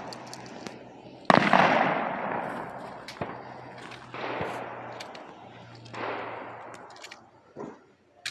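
Ithaca Featherlight pump-action shotgun firing at clay targets: one loud shot a little over a second in that rings out over about two seconds, then two fainter bangs a couple of seconds apart, and a few sharp clicks near the end.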